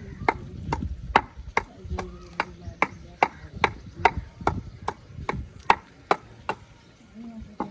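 Wooden pestle pounding in a wooden mortar: steady, even knocks about two and a half a second, stopping about six and a half seconds in.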